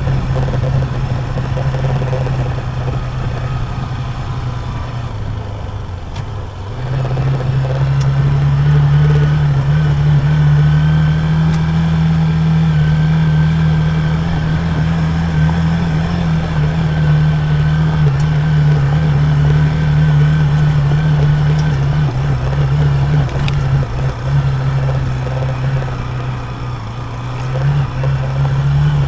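Hero Xpulse 200 Rally's single-cylinder four-stroke engine running under load on a rocky climb. The engine note sags about five seconds in, picks up again a couple of seconds later and holds steady, then dips briefly near the end.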